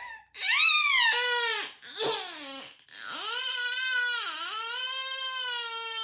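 A child's high-pitched crying: three short wailing cries, then one long, drawn-out wail that dips in pitch partway through.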